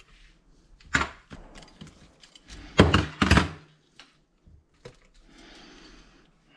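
Several sharp knocks and clatters of metal tools or engine parts handled on a workbench, loudest about a second in and twice close together near the middle, followed by a soft steady hiss.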